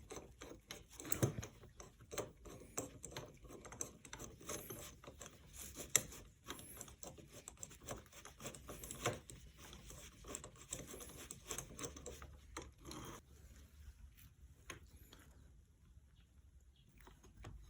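Small irregular metallic clicks and light scrapes of a 15 mm socket and nut being turned by hand onto the fork's bottom screw. They fade out about two-thirds of the way through.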